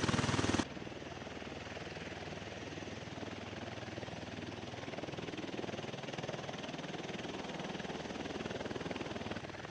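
V-22 Osprey tiltrotor's engines and rotors running steadily. The sound is loud for the first half-second, then drops suddenly to a quieter, steady rushing noise.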